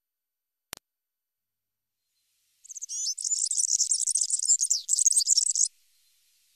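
European serin singing its fast, high-pitched, jingling song for about three seconds, starting a little over two and a half seconds in. A single brief click comes just before, under a second in.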